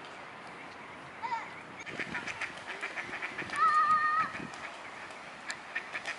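Mallard ducks quacking in a quick series as they scuffle on a pond, with one louder drawn-out call about three and a half seconds in.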